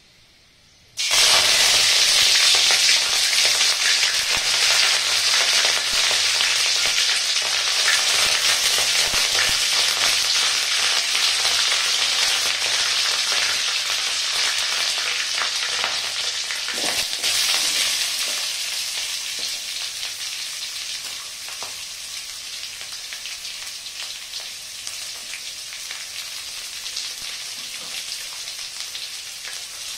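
Hot oil frying in an aluminium kadai, starting suddenly about a second in, loud at first and then slowly easing off as leaves and then sliced onions fry in it.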